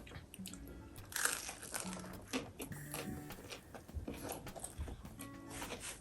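Pizza being bitten and chewed, with scattered small crunches, over soft background music.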